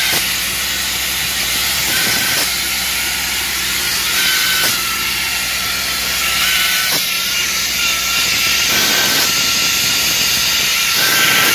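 Road-striping truck's paint guns and glass-bead guns spraying a yellow line onto the pavement: a loud, steady hiss of pressurised spray, over the noise of the moving truck.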